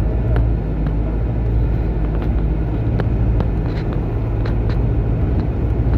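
Bus engine running and road rumble inside the passenger cabin, steady throughout, with a few light clicks and rattles.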